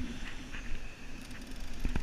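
Wind buffeting the microphone, with scattered short knocks and clicks from handling a heavy surf rod and reel while fighting a large fish.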